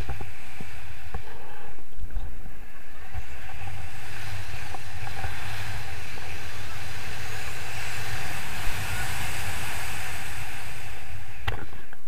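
Steady wind rushing and buffeting over the microphone of a camera carried on a paraglider in flight, with a low rumble under a hiss. A brief sharp click comes near the end.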